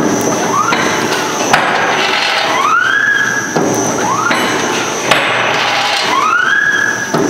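Paradichlorobenzene tablet press running through its pressing cycle over a constant mechanical clatter. About every three and a half seconds a rising whine is followed by a sharp clack, twice in all.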